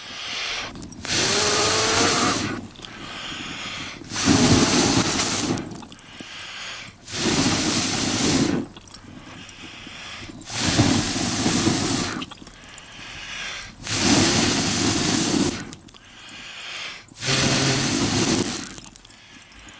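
A person blowing hard by mouth onto lump charcoal in a grill to get it burning. There are six long puffs of breath about three seconds apart, each a loud rush of air with quieter breaths drawn in between.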